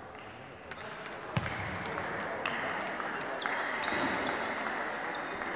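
Table tennis balls ticking sharply and irregularly on tables and bats, a handful of separate clicks, over a steady hubbub of voices in the hall.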